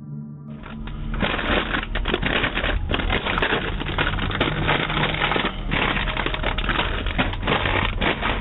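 Dense crackling noise with many sharp clicks through a doorbell camera's microphone, starting about half a second in.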